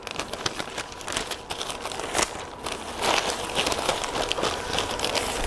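Newspaper crinkling and crackling as it is unwrapped by hand from a potted plant, busier and louder from about halfway in.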